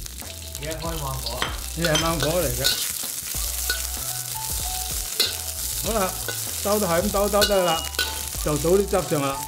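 Metal spatula stirring and scraping strips of orange peel around a stainless steel wok, with the oil sizzling lightly.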